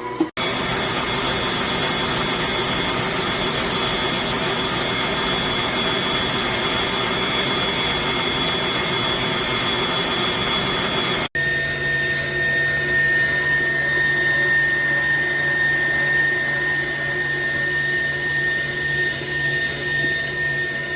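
Electric stand mixer (COOKLEE SM-1551, 660 W) running at a high speed setting, its motor giving a steady high-pitched whine. The sound cuts off abruptly about 11 seconds in and resumes with the whine at a noticeably lower pitch.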